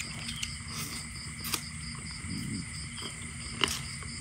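Insects trilling steadily in the background, a fast even pulsing chirp over a constant high hum. Two sharp clicks come through, about one and a half and three and a half seconds in.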